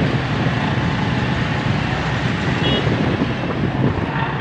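Busy city road traffic heard while moving through it: motorcycle and auto-rickshaw engines running steadily amid road noise, with a brief high-pitched tone about two-thirds of the way through.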